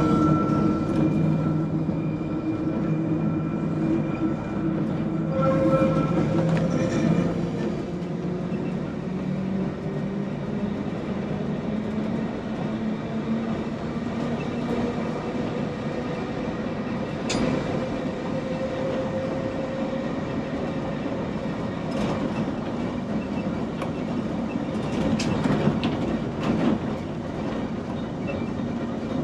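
Manx Electric Railway electric tramcar running along the line, heard from inside its wooden cab: a steady rumble with a humming whine from the traction motors and gearing that slowly rises and falls in pitch, and a few sharp clacks from the wheels over rail joints, several close together near the end.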